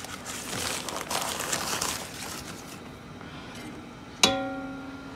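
A plastic bag crinkles and rustles for about two seconds. About four seconds in, a measuring cup strikes the rim of a stainless steel mixing bowl once, and the bowl rings on with a clear tone that fades.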